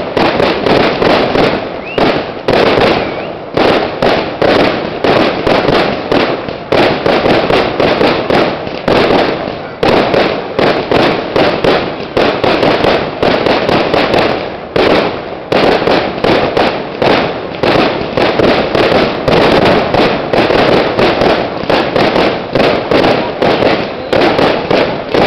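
Fireworks display: aerial shells bursting overhead in a rapid, almost unbroken barrage of bangs, several a second, with brief lulls about ten and fourteen seconds in.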